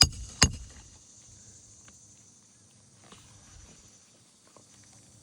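Two sharp metal strikes about half a second apart: a roof snake being struck to drive a roofing nail back in under a shingle. Faint taps follow over a steady high drone of insects.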